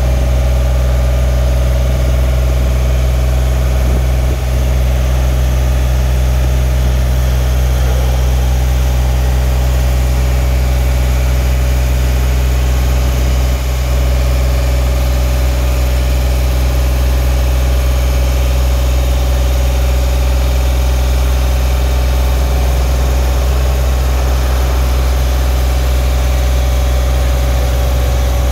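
Genie S-40 boom lift's engine running steadily while the boom is raised and extended under hydraulic power, with a steady hum throughout.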